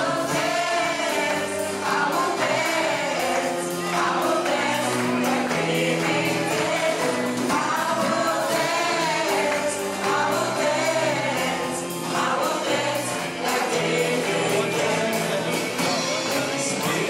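Gospel choir singing with instrumental backing.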